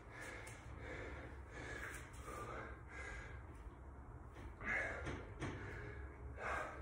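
A man breathing hard and fast, out of breath after a high-intensity exercise set, with two louder breaths near the end.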